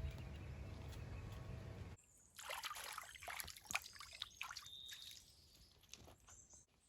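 Water trickling and splashing in a shallow stream, with irregular splashes after a cut about two seconds in, then fading.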